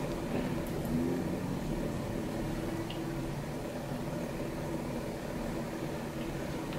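Steady low hum of background machine noise, even and unchanging.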